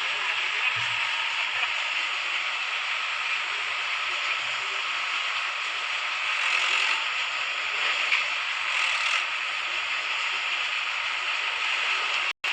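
Excavator running: a steady, dense mechanical clatter of engine and hydraulics, briefly cut off just before the end.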